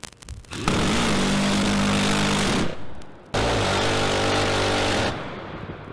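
Phalanx CIWS 20 mm six-barrel Gatling gun firing two long bursts of about two seconds and a second and a half, each a continuous buzzing roar rather than separate shots.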